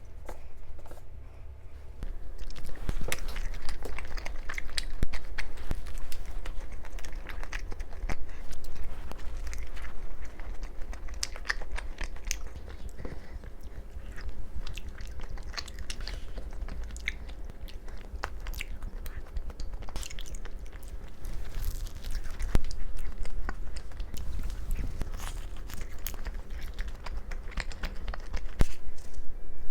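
A person chewing and biting food close to the microphone, with many small clicks and crunches, over a steady low rumble.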